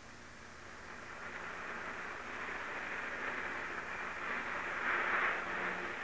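Rubber-tired Transit Expressway car passing a sound-test microphone: a soft hiss of tire noise that builds and peaks about five seconds in.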